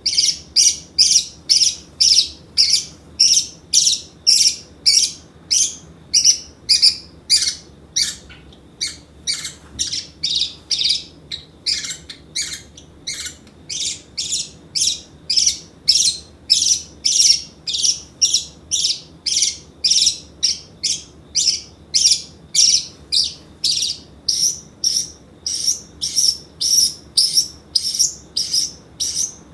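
Pacific parrotlet calling over and over, short shrill high-pitched calls about two a second, steady and insistent.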